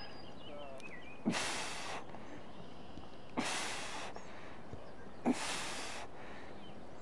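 A man's forceful exhalations under exertion, each starting with a short grunt and hissing out for about half a second, three times about two seconds apart, one per rep of a lying kettlebell crunch.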